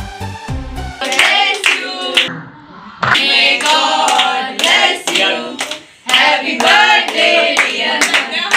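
A small group of people singing together and clapping their hands. An electronic dance beat cuts off about a second in.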